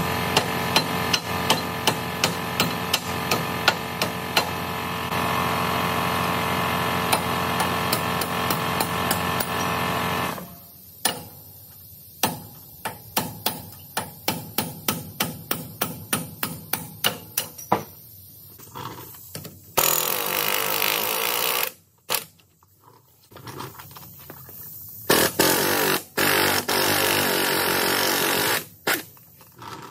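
Steady metal-on-metal hammer blows, about two to three a second, on a long steel punch held against a semi truck's steering knuckle. In the first part a steady machine noise runs underneath. Later come loud bursts of rushing air-tool noise.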